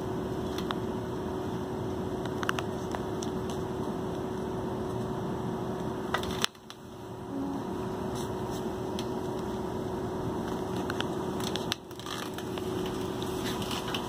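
Steady background hum and hiss with a few faint clicks; the sound drops out sharply twice, about halfway through and again near the end, then comes back.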